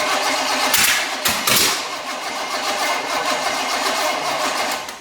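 Starter motor cranking a 305 cubic inch small-block Chevy V8 on an engine stand, primed with gas poured into the carburetor; the engine turns over steadily without catching and stops near the end.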